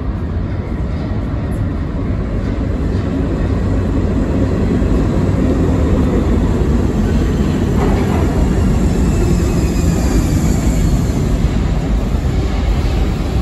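Eight-car Budd R32 subway train running through the station on the express track without stopping: a steady rumble of steel wheels on rail that builds as the train nears, with a brief falling squeal about eight seconds in.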